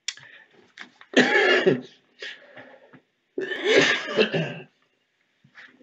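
A man coughing in two bouts, one about a second in and another about three and a half seconds in, each lasting about a second.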